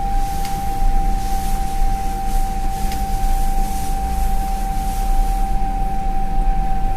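Toshiba Elemate New Luminous elevator's announcement speaker giving a steady, unbroken high 'puu' tone, like a ship's horn, over a low rumble. This abnormal noise is typical of this elevator model.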